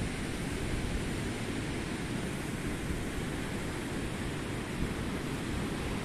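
Steady wind noise buffeting the microphone, heaviest in the low end, mixed with the constant sound of sea surf.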